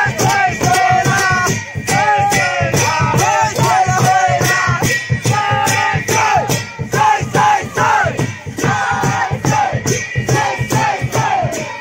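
A group of men singing and shouting a Sakewa Silli dance song in chorus over a steady percussive beat.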